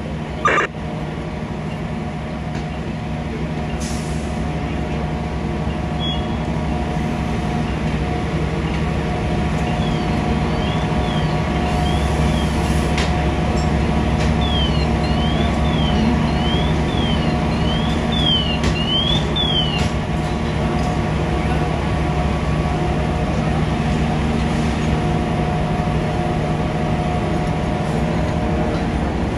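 Diesel engine of a fire truck running steadily at the fire scene, its hum building over the first several seconds. A sharp knock comes right at the start, and a faint siren sweeps rapidly up and down from about ten to twenty seconds in.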